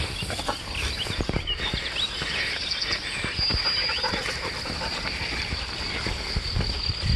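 Summer meadow ambience: birds chirping briefly and a steady high insect buzz, over a low rumble with scattered rustles and soft steps through the grass.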